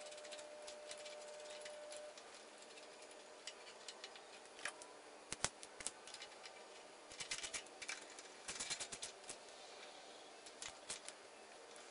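Faint, scattered metallic clicks and ticks as a bolt is threaded by hand through a motorcycle handlebar riser into the top clamp, with a quick run of them a few seconds from the end.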